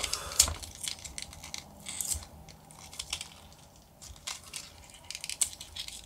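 Wrapper being peeled off a coiled Apple USB-C to Lightning cable by hand: irregular crinkling and crackling with scattered small clicks, loudest about half a second in.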